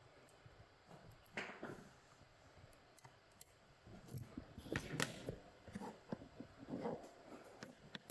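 Small clicks and handling noises from picking tools and a pin-tumbler style lock being worked, with irregular light clicks and a busier cluster about halfway through.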